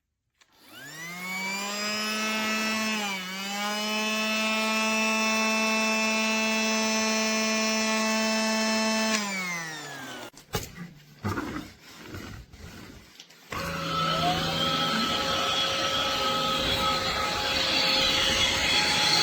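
The small electric motor of a Casdon Dyson toy cordless vacuum whining up to speed, dipping briefly, running steady, then winding down about nine seconds in. A few seconds of knocks and rattles follow before the motor runs again with a noisier sound.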